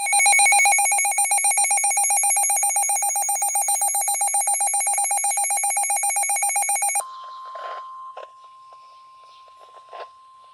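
Emergency alert for a severe thunderstorm warning: a loud, rapidly pulsing electronic alarm beeps for about seven seconds and then cuts off suddenly. It gives way to a quieter single steady tone, the 1050 Hz weather-radio warning alarm tone that comes before the spoken warning, with a few faint clicks.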